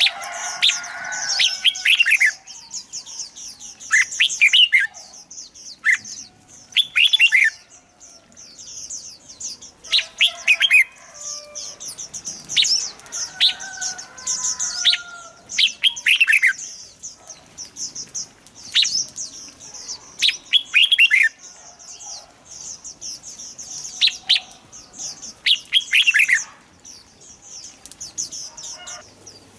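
Red-whiskered bulbul song: short, bright phrases repeated every couple of seconds, each a high twitter with quick downward-sweeping notes. Fainter, lower warbling notes run beneath in places.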